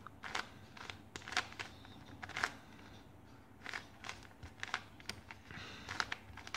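Factory-lubricated ShengShou Square-1 puzzle being turned by hand, its plastic layers giving irregular soft clicks as they twist.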